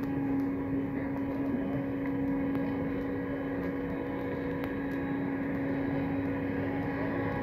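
Škoda Tr9 trolleybus standing with its auxiliary machinery running: a steady electrical hum that holds one pitch throughout.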